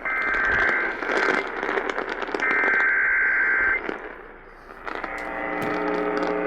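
Emergency Alert System header data bursts received over AM radio: two harsh, buzzy digital screeches about a second apart, over crackling static. About five seconds in, a lower buzzing tone begins.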